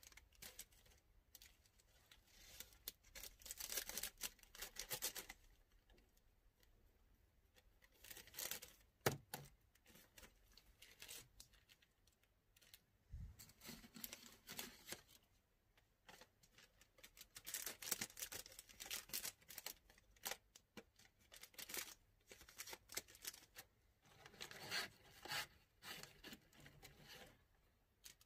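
Bundles of patchouli incense sticks being handled and counted: bursts of dry clicking and rattling as the thin sticks are tapped and slid against each other, with crinkling of a plastic bag, separated by short quiet gaps. A single sharp knock about nine seconds in is the loudest sound.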